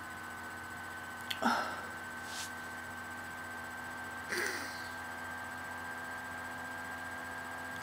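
Steady electrical hum in a small, quiet room, broken by a few brief soft sounds from a person close to the microphone: a short sigh-like sound about a second and a half in, and a breathy sound about four seconds in as she rubs her face.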